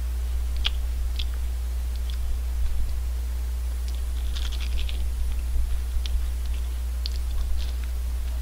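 Crunching bites and chewing of a vanilla almond ice cream cone: scattered crisp crackles, busiest about four to five seconds in, over a steady low hum.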